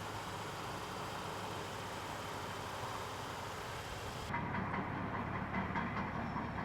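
Vehicle engine idling with a steady low hum. About two-thirds of the way in the sound changes abruptly to a duller background with faint steady tones.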